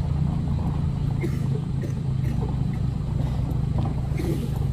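Small pickup engine running at low revs as it creeps over a rough gravel road, a steady low hum with light scattered clicks.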